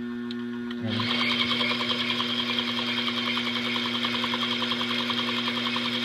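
Pfaff semi-industrial sewing machine driven by its table motor through a loose belt. The motor hums steadily, then about a second in the machine starts running fast, with a quick, even chatter from the needle and hook mechanism.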